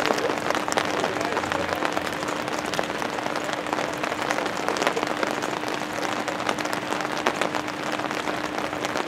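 Rain falling close to the microphone: a dense, continuous run of small drop hits, with a steady low hum underneath.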